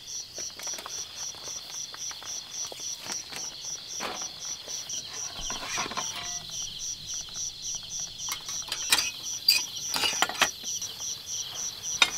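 Crickets chirping steadily, a high pulsing at about five pulses a second, with scattered light clicks and knocks that are loudest about nine to ten seconds in.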